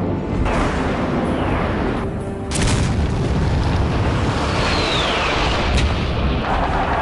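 Dramatic soundtrack music mixed with war sound effects: a loud boom about two and a half seconds in, and a falling whistle a little after the middle.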